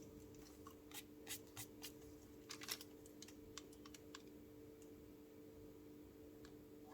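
Faint, irregular taps and clicks of a thin-tip marker drawing short strokes on paper, mostly in the first few seconds, over a steady low hum.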